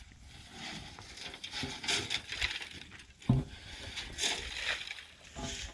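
Rough scraping and crunching as a wooden pole is handled against a cinder-block wall, with one sharp knock a little over three seconds in.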